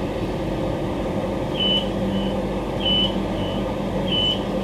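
Electronic warning beeps inside a stationary Queensland Rail electric multiple unit: starting about a second and a half in, a high beep followed by a shorter, fainter one, repeating about every 1.3 seconds. Under them runs the carriage's steady equipment hum.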